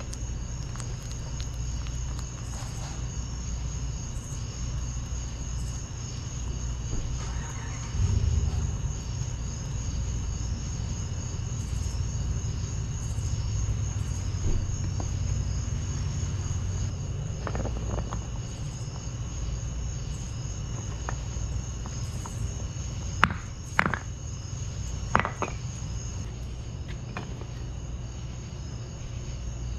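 Steady low roar of a propane-fired crucible furnace, with a steady high-pitched tone above it. Near the end, three sharp metal knocks as the freshly cast copper ingot is knocked out of its steel mold onto a brick.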